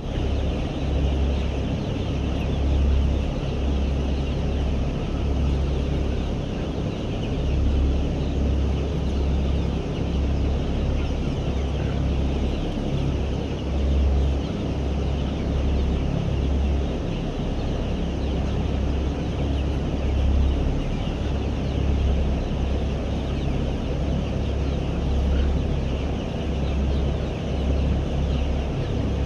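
A flock of desi chickens clucking continuously, over a steady low rumble that swells and fades every second or so.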